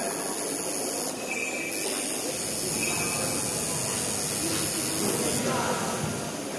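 Steady background hiss with faint, indistinct voices.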